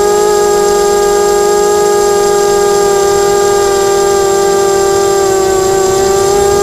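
Mini quadcopter's electric motors and propellers whining steadily at one high, even pitch, heard from the onboard camera; the pitch dips slightly about five seconds in.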